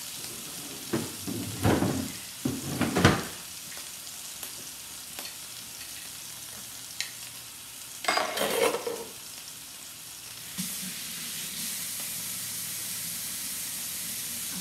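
Swordfish steaks sizzling as they pan-sear in hot oil in a skillet. The sizzle grows louder about ten seconds in. Loud clattering knocks come between about one and three seconds in and again around eight seconds in.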